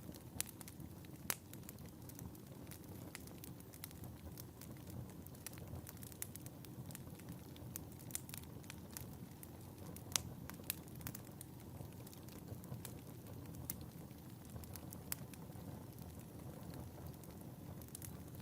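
Wood fire burning in a fireplace: a low steady rumble of flames with frequent irregular crackles and pops, a few sharper pops standing out.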